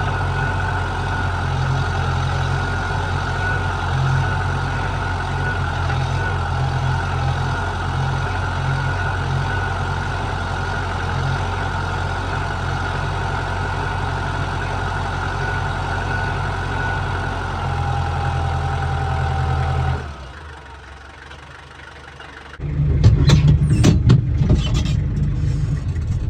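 An engine idling steadily for about 20 seconds, then cutting out abruptly. A couple of seconds later a louder, rougher rumble with clattering knocks starts.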